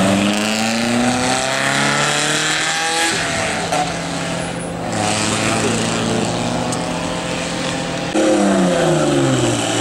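A pre-war vintage sports car's engine accelerating away, its pitch rising over the first few seconds and then holding steady. About eight seconds in, a second vintage car's engine comes in louder, dropping in pitch and then rising again.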